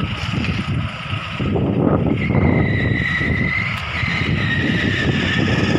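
Engine and road noise of a moving vehicle, a steady rumble throughout. From about two seconds in, a thin high whistling tone holds for several seconds above it.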